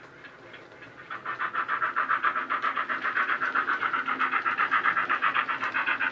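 Steam-exhaust chuffing from the Loksound 5 sound decoder (Jamie Goodman sound file) in a Bachmann GWR 45XX Prairie tank model locomotive, played through a small sugarcube speaker under the chimney. It is faint at first, then about a second in it grows into a fast, even chuff that holds steady as the engine runs at speed.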